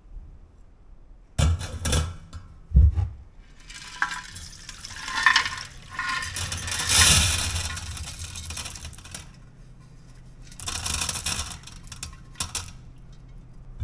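A couple of knocks, then used polishing liquid being poured out of a barrel polisher's drum, splashing for several seconds, with a second shorter pour near the end. The liquid has turned a sludge colour from the rust polished off the parts.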